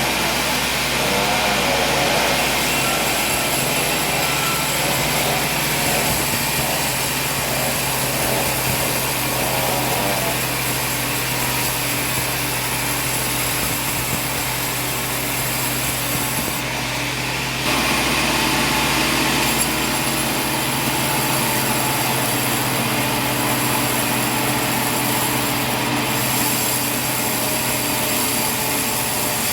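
Sawmill machinery running: a steady mechanical hum with a high hiss, and a wavering tone in the first few seconds. The sound shifts abruptly a little past the middle.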